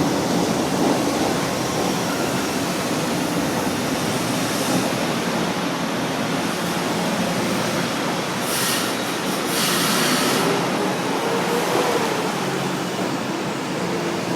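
São Paulo Metro Line 1 train running through the station, a steady rumble of wheels and motors. Two short hisses come about eight and ten seconds in.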